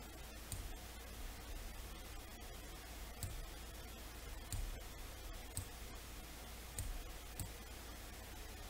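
Computer mouse clicking about six times at irregular intervals, quiet, over a low steady hum.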